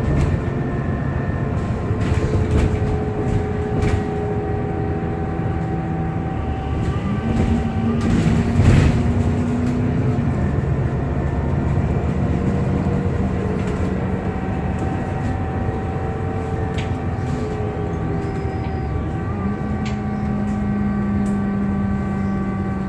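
Alexander Dennis Enviro 400MMC double-decker bus on the move: a rumbling drive with a steady whirring whine whose pitch steps up and down a few times, the strange whirring noise the bus is known for. Light rattles throughout and one louder knock about nine seconds in.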